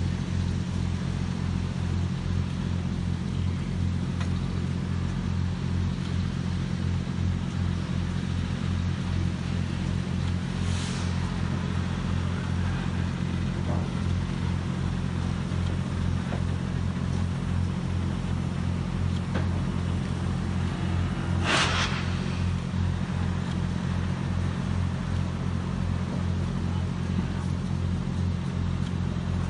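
Standing steam locomotive at rest, with a steady low mechanical hum and a fast, even throb throughout. Two short hisses sound about ten seconds in and, stronger, a little past twenty seconds.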